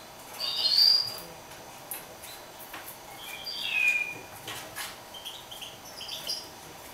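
Caged mule finch (a canary hybrid) singing short twittering phrases in three bursts: the loudest about half a second in, another around three to four seconds in with a falling note, and a softer one near the end. A few faint ticks come between them.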